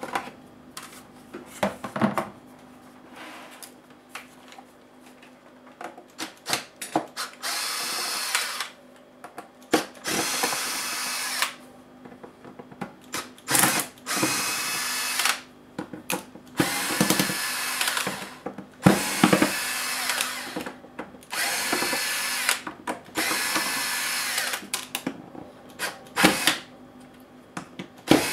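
Cordless electric screwdriver whirring in about ten short runs of a second or so each, backing out the small screws of a laptop's bottom case. Small clicks and taps of handling fill the gaps, and the first several seconds hold only these clicks.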